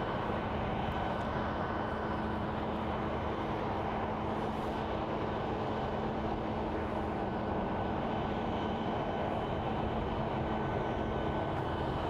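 Steady mechanical hum holding a few faint fixed pitches over a low rumbling noise, with no change or sudden sounds.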